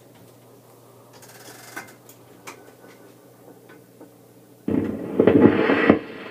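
Wurlitzer 1015 jukebox mechanism clicking and ticking over a steady low hum, then a sudden loud stretch of sound about four and a half seconds in as playback starts.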